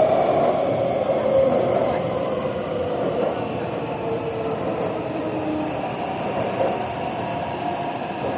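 Metro train running: a steady rumble of wheels and motors with a held whining tone, easing slightly in loudness after about two seconds.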